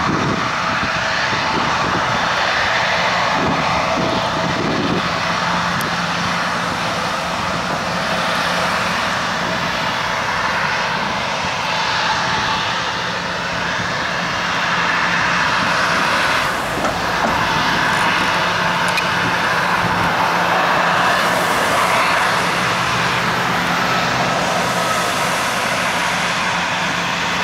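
Boeing 717-200's Rolls-Royce BR715 turbofan engines at idle thrust, a steady jet whine and rush while the airliner taxis onto the runway before its takeoff roll.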